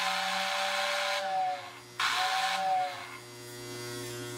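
Postwar Lionel whistle tender's motor-driven air whistle blowing: a breathy two-tone hoot that cuts off about a second and a half in with its pitch sagging, then a second, shorter blast about two seconds in. A steady electrical hum sounds under and after the blasts.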